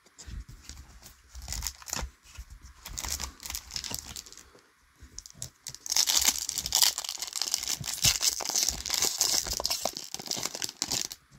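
A trading card booster pack being opened: light rustles and clicks of cards being handled, then about halfway through a loud, dense crinkling and tearing of the plastic foil wrapper that lasts several seconds.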